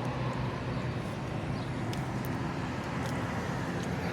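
Steady road traffic noise with a low engine hum, plus a few faint ticks.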